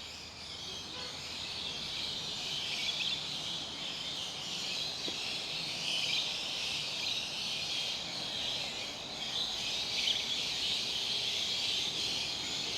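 Steady high-pitched chorus of insects, swelling and ebbing slightly.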